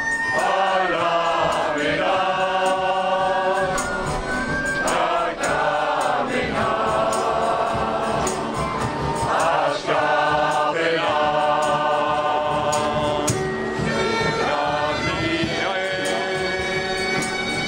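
A large crowd of men and women singing a Basque-language song together in chorus, many voices on a slow, sustained melody.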